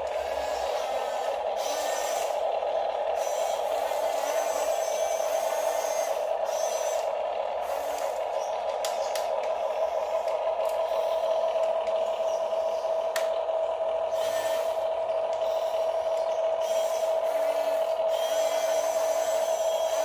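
Huina 1569 RC bulldozer's electric track motors and gearboxes whining steadily as it drives and turns, with a couple of light clicks.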